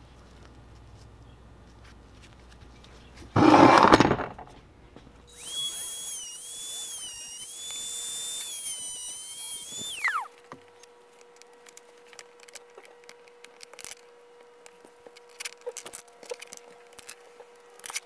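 A short, loud burst of noise about three and a half seconds in. Then a small high-speed rotary tool whines at a high pitch for about five seconds, its pitch dipping and recovering as it works, before it winds down. Scattered light clicks follow.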